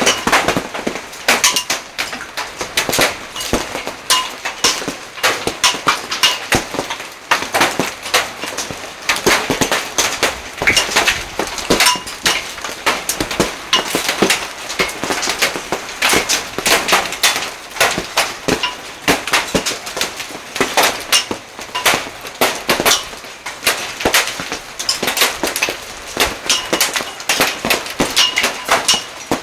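Heavy hail pelting down: a dense, irregular clatter of hailstones striking hard surfaces, with short ringing pings among the hits.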